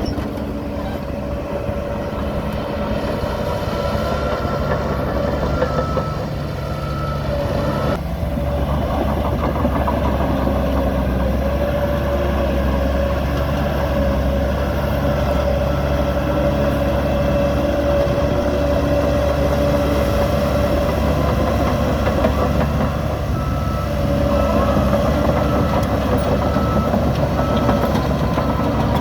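Heavy diesel machinery running steadily with a constant whine, the engines of a bulldozer and a truck at work. Twice a rapid pulsing high beep comes and goes.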